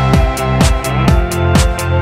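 Electronic background music with a steady drum beat, about two beats a second, over sustained synth tones.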